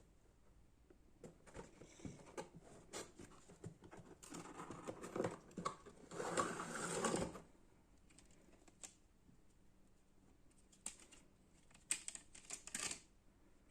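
Packaging being handled during an unboxing: scattered clicks and rustles, a longer spell of rustling and scraping about four to seven seconds in, and a quick run of sharp clicks near the end.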